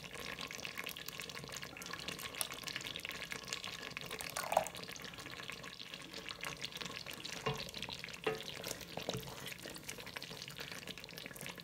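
Thick peanut sauce crackling and popping as it cooks in a stainless steel pot, stirred with a wooden spoon, with a few light knocks from the spoon partway through.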